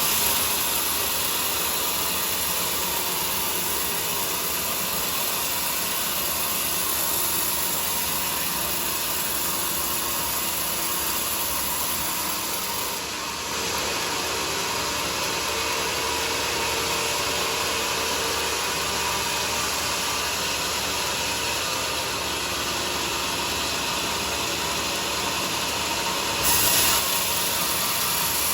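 Bandsaw sawmill running with a steady, continuous mechanical noise. The sound turns duller about halfway through and briefly gets louder near the end.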